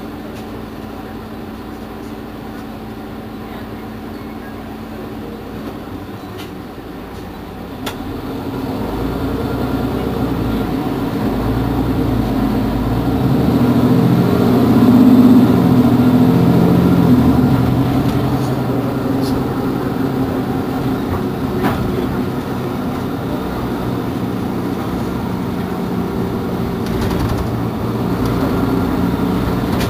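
Mercedes-Benz Citaro G C2 articulated bus's diesel engine idling at a standstill: a steady hum that swells louder from about eight seconds in, peaks around the middle and then eases back slightly.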